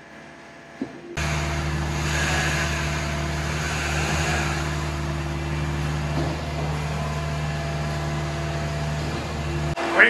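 Steady, loud engine-like drone with a low hum, starting abruptly about a second in, holding even, and cutting off sharply just before the end.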